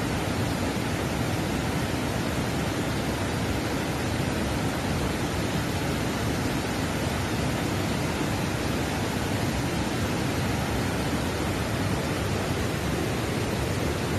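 River rapids and a small waterfall rushing over rocks: a steady, even hiss of white water with no breaks.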